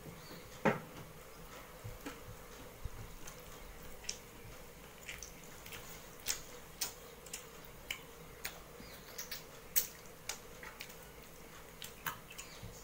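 Eating by hand from a steel plate: fingers mixing and scooping rice, giving scattered small clicks and wet sounds of food and chewing.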